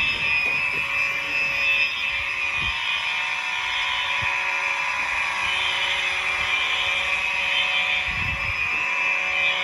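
Building fire alarm horns (a mix of Wheelock, Gentex and Simplex horns) sounding on continuous: one steady, unbroken blare with no temporal on-off pattern.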